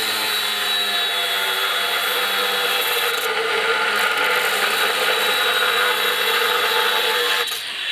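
Battery Makita angle grinders cutting galvanized threaded rod with abrasive cut-off discs: a steady high whine over a harsh grinding rasp. It stops sharply about seven and a half seconds in.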